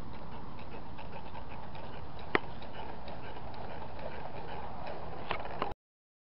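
Steady outdoor background noise with faint ticks, a sharp click about two and a half seconds in and two more near the end. The sound then cuts off abruptly to silence.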